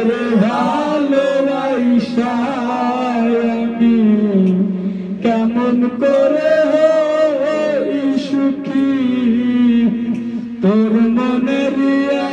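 Men's voices singing a Bengali song together, the lead singer into a handheld microphone, in long held notes that bend up and down, with brief pauses between phrases.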